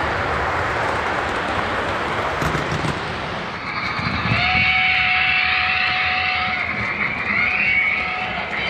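Lionel LionChief Plus 2.0 0-6-0T O-gauge steam locomotive running on track with its onboard sound system. About four seconds in it sounds its steam whistle, one long blast followed by a shorter one.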